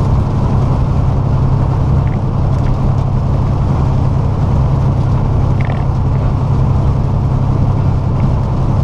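Steady drone of a truck's diesel engine and road noise, heard from inside the cab at highway speed, with a few faint ticks.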